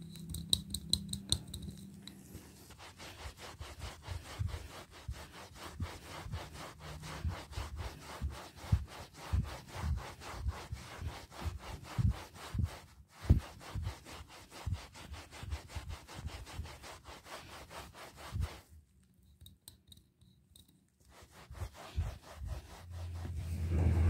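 A soap pump dispenser is pressed at the start. Then a microfiber cloth is scrubbed back and forth over a carpet with liquid soap in rapid, rasping rubbing strokes, which stop about nineteen seconds in.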